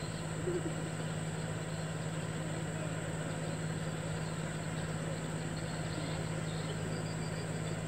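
Steady low drone of a tugboat's diesel engine towing a log raft, with a few faint bird chirps.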